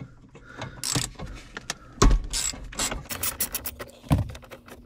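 Ratchet with a 10 mm socket clicking in quick runs as a small dash bolt is backed out, with a couple of heavier knocks along the way.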